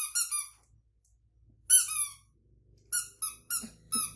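Squeeze toys shaped like small animals, squeezed by hand and bitten, giving short high squeaks in clusters. The longest and loudest squeak comes about two seconds in, and several quick squeaks follow near the end.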